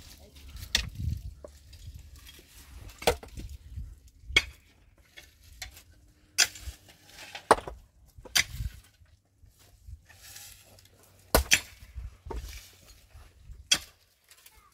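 Pickaxe striking stony ground and rock, about nine sharp metal-on-stone blows at an uneven pace, one to two seconds apart, with loosened stones and dirt rattling between them.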